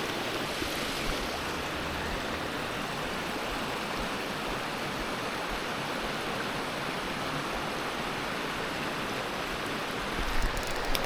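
Steady rush of flowing river water, with a few brief knocks near the end.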